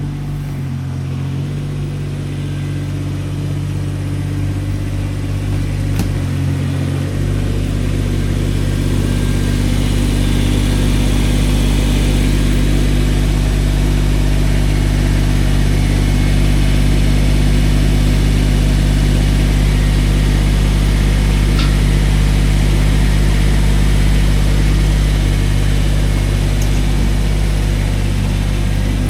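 A vehicle engine running steadily, a low drone whose pitch steps slightly about a second and a half in and again around seven seconds, then holds steady and grows a little louder before cutting off.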